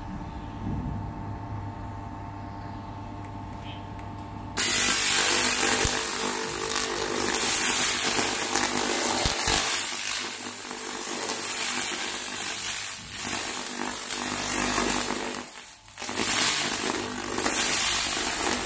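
Handheld 1500 W laser cleaning head firing onto rusty steel: a loud, steady crackling hiss as the rust is burned off starts abruptly about four and a half seconds in and breaks off for a moment near the end before resuming. Before it, only a steady low machine hum.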